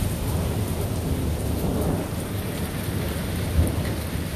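Thunder rumbling over steady rain; the rumble swells partway through, and a short low thump near the end is the loudest moment.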